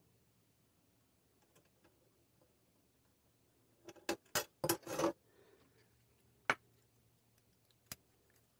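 Sharp metallic clicks and taps from handling a slow cooker's stainless-steel base plate: after a few seconds of near silence, four quick clicks come about four seconds in, then a single one about two and a half seconds later and a faint one near the end.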